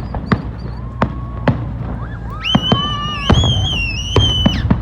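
Consumer fireworks going off, with about seven sharp pops scattered through. A high, wavering whistle, typical of a whistling firework, starts about halfway in and cuts off just before the end.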